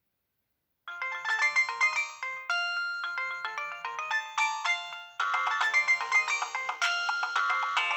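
Nokia 6030 mobile phone playing one of its ringtones: an electronic melody with several notes sounding at once, starting about a second in after silence.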